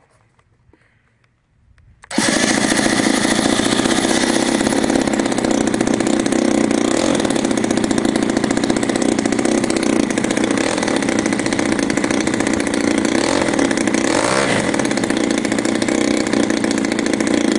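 EME 35cc single-cylinder two-stroke model-aircraft engine turning a 20-inch propeller on a test stand, coming in suddenly about two seconds in and then running steadily on its break-in run.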